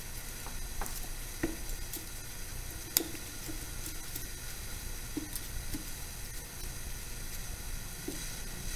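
Scattered light clicks and taps of hand work on a metal power-feed housing, the sharpest about three seconds in, over a steady hiss and low hum.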